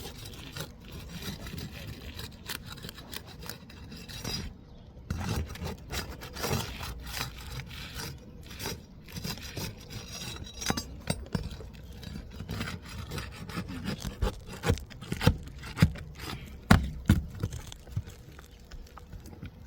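Roofing work on shingles: scraping and rubbing, broken by irregular sharp knocks that grow louder about three quarters of the way through.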